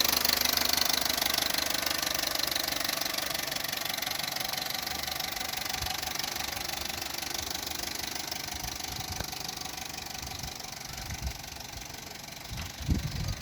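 Opel Corsa D's 1.2 Z12XEP four-cylinder petrol engine idling with a metallic rattle that the owner takes for timing chain noise, present only when the engine is fully warm. The sound grows gradually fainter, with a few dull knocks near the end.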